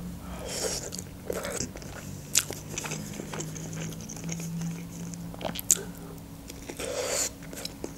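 Close-miked eating sounds: a woman chewing a mouthful of omelette, then biting into and chewing a piece of cooked broccoli, with scattered crunches and sharp mouth clicks.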